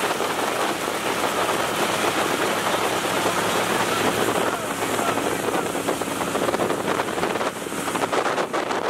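Boat motor running at speed, with a heavy rush of wind on the microphone and water spray.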